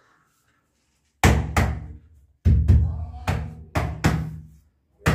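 Deep drum beats from a music track, starting about a second in and falling mostly in pairs, each beat ringing out with a low tone.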